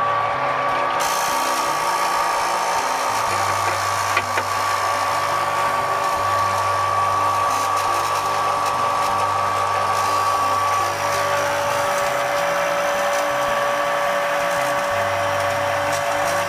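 Small electric wort pump running steadily while recirculating the mash, giving a constant high whine.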